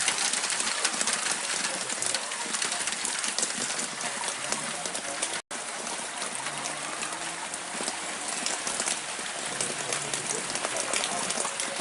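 Steady rain pattering: a dense hiss of small drop ticks. It cuts out completely for an instant about halfway through.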